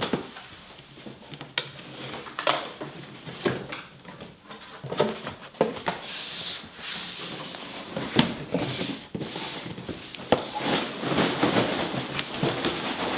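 A large cardboard box being opened and handled: scraping and rubbing of cardboard with a series of irregular knocks and taps, busier in the second half.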